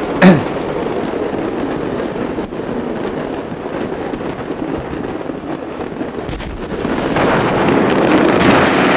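A large stock of fireworks going off uncontrolled in a storage-depot fire: one loud bang just after the start, then a dense, continuous crackle and popping of many small reports, louder and denser from about seven seconds in.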